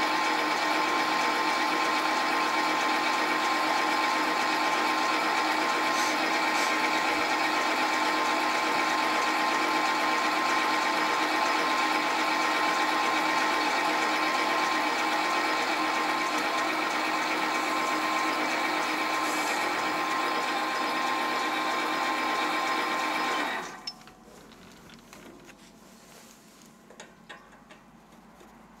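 Sieg SC4 bench lathe running under power while turning the eccentric sheave: a steady machine whine with a constant pitch. It shuts off abruptly about four-fifths of the way through, leaving faint clicks as the part is handled in the chuck.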